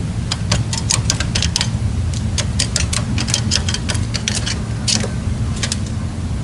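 Caged decoy red-legged partridge calling: a quick, irregular run of short, sharp clicking notes, about five a second, in bunches, over a steady low rumble.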